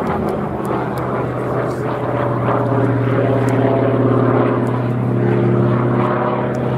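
Single-engine piston warbird flying aerobatics overhead, its engine and propeller running with a steady, unbroken note.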